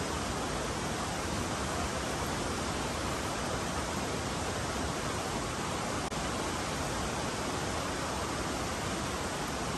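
Steady, even rushing noise at a constant level, without pitch or rhythm.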